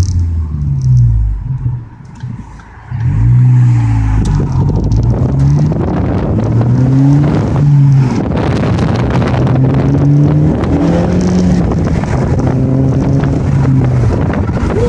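Ford Focus ST's exhaust, a custom MagnaFlow setup with resonator and muffler deleted and a single 5-inch round MagnaFlow muffler, as the car accelerates hard through the gears. The note climbs in pitch and drops back at the gear changes; about two seconds in it falls away for a second, then pulls again. Heard from inside the cabin with the windows down.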